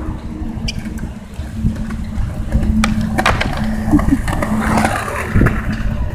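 Skateboard wheels rolling on concrete with a low rumble and hum, and a few sharp clacks of a board about three seconds in.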